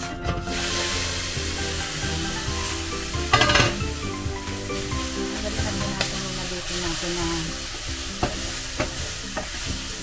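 Sliced eggplant and string beans sizzling in a little oil in a Saladmaster stainless steel skillet while a wooden spoon stirs them, with a brief louder burst of stirring noise about three and a half seconds in.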